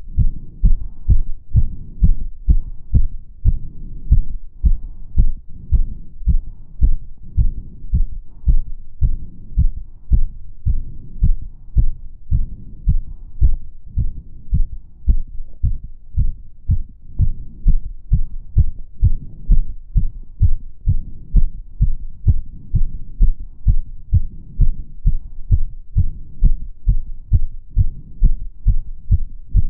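A woman's heart beating fast and steadily, its rate raised by step-up exercise: a regular run of low thumps.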